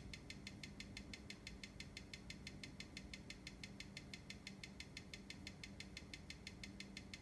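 Seiko NH35 automatic watch movement ticking on a timegrapher, a fast, even tick at about six beats a second, the movement's 21,600 beats per hour.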